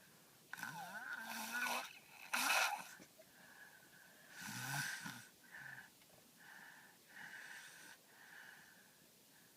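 A young child snoring in his sleep, with a thin whistle on each breath. There is a louder breath about two and a half seconds in and a deeper snore at about five seconds, then shorter, quieter breaths.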